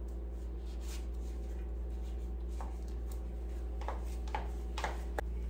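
Steady low hum in a small room, with faint rustling and a few soft clicks from about two and a half seconds in, as of clothing or small things being handled.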